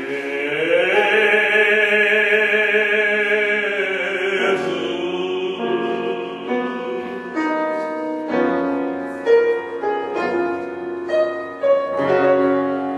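A man's classical operatic voice holds one long note with vibrato, sliding up into it at the start, and stops after about four and a half seconds. A piano then plays alone, a string of separate notes and chords.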